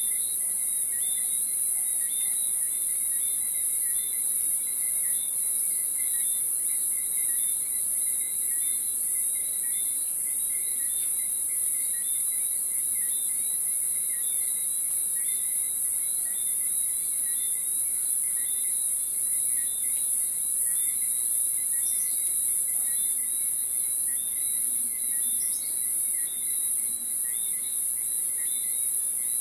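Night chorus of crickets and other insects: a steady high shrill drone, with a regular chirp repeating a little more than once a second beneath it.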